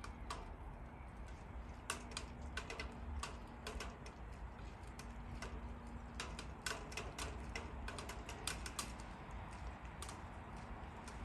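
Raindrops ticking irregularly on a hard surface, light sharp clicks coming in loose clusters over a faint steady low hum.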